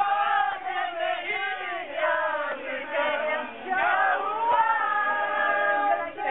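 A group of people singing or chanting together, with several voices at once and some notes held near the end.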